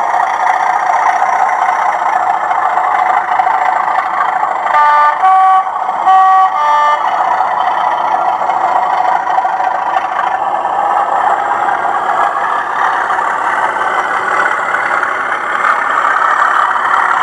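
Hornby OO gauge Class 37 model locomotive's TTS sound decoder playing its diesel engine running sound through the model's small speaker as it moves, a steady drone with the thrash option off. About five seconds in, the two-tone horn sounds twice in quick succession, each blast going from a high note to a lower one.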